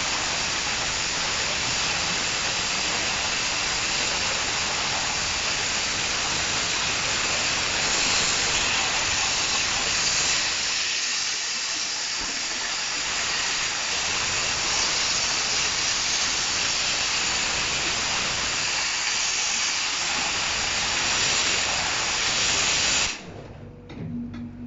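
Dry-ice blaster nozzle spraying compressed air and dry-ice pellets in a steady hiss, which cuts off suddenly near the end.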